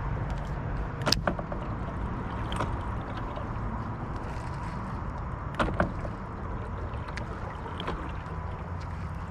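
Sounds of a small boat on the water: a steady low rush of water and hull noise, with a few sharp knocks, the loudest a little after a second in and just before six seconds.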